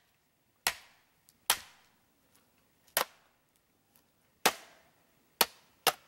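Knife pommel striking a length of green bamboo: six sharp knocks at uneven intervals, each dying away quickly, hammering along scored cuts to crack a lid section of the bamboo open.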